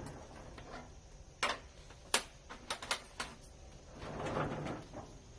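Tiles being handled: several sharp knocks as they are picked up and set down against each other, then a longer scrape about four seconds in.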